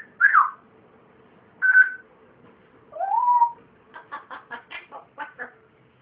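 Pet parrot calling in a run of mimicked whistles: a falling whistle, a short steady whistle, a rising whistle, then a quick string of about eight short choppy notes near the end.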